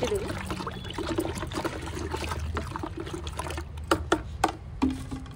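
A stick stirring rice-starch water and mustard oil cake in a plastic bucket, the frothy liquid sloshing and splashing as it is mixed into liquid fertilizer. Three sharp knocks about four seconds in.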